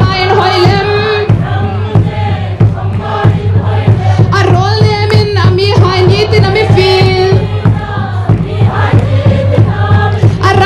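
A choir singing, several voices together, over a steady low hum.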